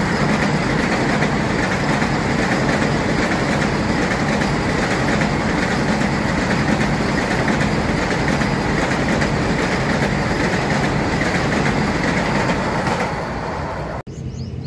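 Vande Bharat electric multiple-unit trainset passing at speed: a steady, loud rush and rumble of its coaches and wheels on the rails. The sound eases about 13 seconds in and then cuts off abruptly to a quieter background.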